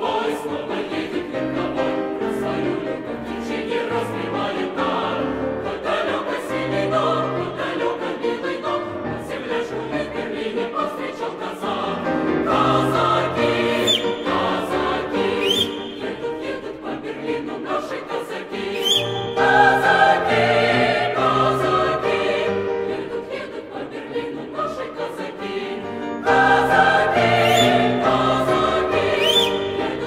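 Mixed choir of men's and women's voices singing with grand piano accompaniment, the sound swelling louder in several phrases.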